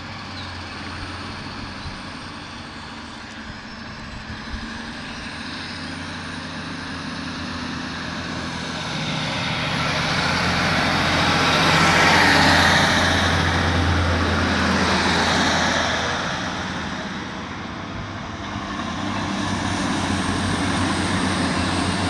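Northern Class 156 diesel multiple unit pulling away under power, its Cummins diesel engines running with a steady low tone that grows louder as the train passes close, about halfway through, then fades as it draws away. Near the end the sound rises again as another train comes in on the far line.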